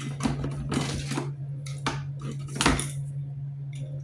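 Hard plastic mop-bucket and mop parts being handled, knocking and clattering together several times, the loudest clack about two and a half seconds in, over a steady low hum.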